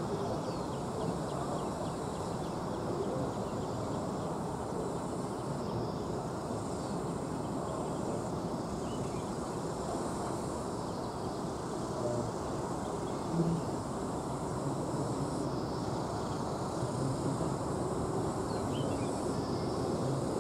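Steady low rumble of distant airport noise, with a steady high insect drone over it and a few faint bird chirps.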